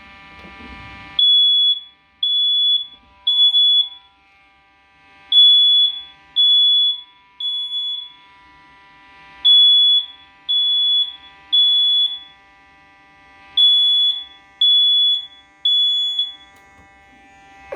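First Alert smoke detector sounding on its test button in the temporal-three pattern: four groups of three loud, high-pitched beeps, with a pause after each group. A fainter steady hum of several tones runs underneath.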